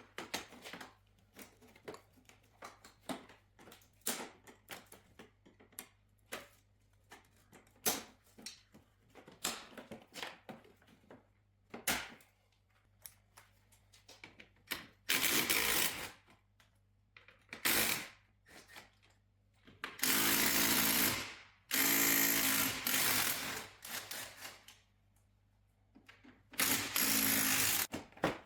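Scattered clicks and knocks of hand work on fasteners and clips, then a cordless impact gun running in about five short bursts of a second or so each in the second half, undoing bolts.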